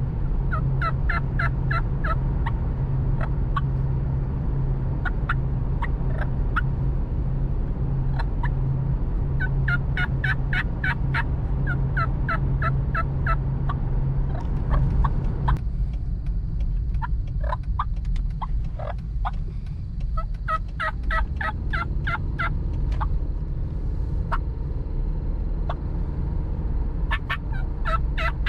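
Diaphragm turkey mouth call blown in runs of yelps, short notes breaking between a low and a high pitch about three times a second, with pauses between the runs. Steady road noise from inside a moving car lies underneath.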